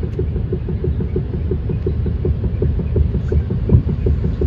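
Mercedes E220d front suspension giving a quick, regular metallic knocking over a low road rumble, heard from inside the cabin while driving on an uneven road. The knocking is the sign of a worn front suspension: weak front shock absorber struts and strut mounts with heavy play.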